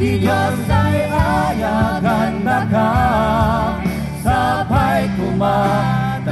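A live band playing: a lead singer holds a sustained melody with vibrato over guitars, bass guitar, keyboard and drums, amplified through the stage speakers.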